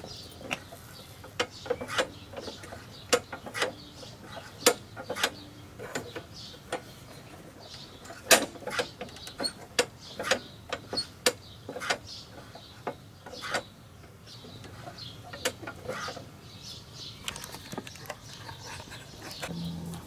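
Irregular clicks and clacks from a Murray push mower's engine-stop safety cable linkage as the cable is pulled and released, the spring-loaded stop lever snapping back against its bracket. The clicks come about once a second, the loudest a little before halfway, and die out in the last few seconds.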